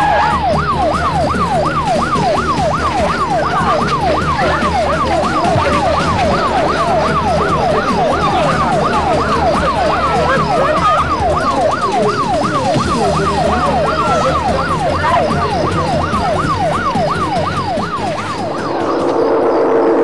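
Emergency-vehicle siren in a fast yelp, its pitch sweeping rapidly up and down a few times a second over a low rumble. It cuts off near the end as a low steady tone begins.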